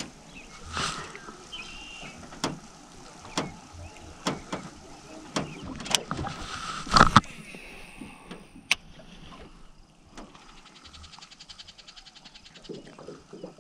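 Irregular knocks and thumps in a small fishing boat while a baitcasting rod is worked at the side, with the loudest clatter about seven seconds in. Near the end comes a fast, fine, even ticking.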